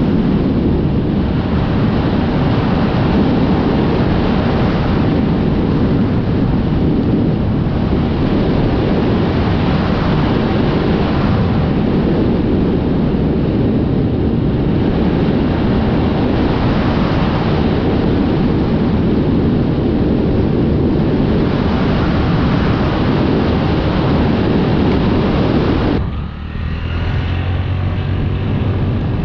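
Wind rushing over the microphone of a small Honda motorcycle riding at road speed, with its engine running underneath. About 26 seconds in the wind suddenly falls away as the bike slows, leaving the engine's low steady note.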